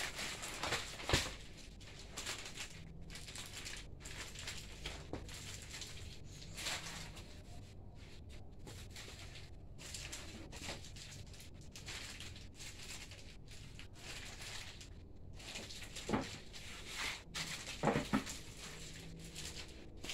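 Scattered rustles, crinkles and taps of a parcel of plastic bags being handled and opened.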